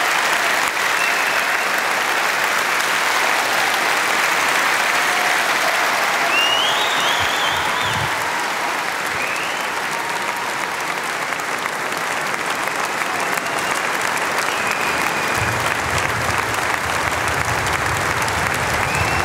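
A large live audience applauding steadily and at length at the end of a show.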